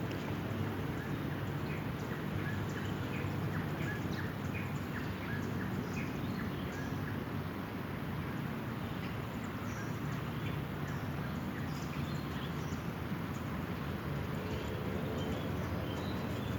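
Steady outdoor background noise with short bird chirps scattered through it.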